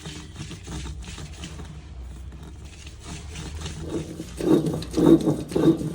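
Stone roller worked back and forth on an ammi, a flat grinding stone, grinding roasted thuthuvalai leaves into a coarse thuvaiyal paste. The scraping strokes come about three a second and grow heavier and louder about four seconds in.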